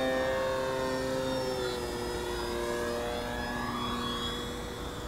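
A radio-control OMP Super Decathlon model airplane in flight: its electric motor and propeller give a steady whine that drops in pitch about a second and a half in as the throttle comes back. It fades slightly as the plane passes by.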